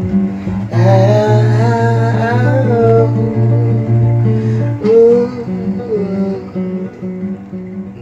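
Closing song with acoustic guitar and a voice singing drawn-out, sliding notes. A deep pulsing bass note, about two a second, comes in about a second in and drops out near five seconds.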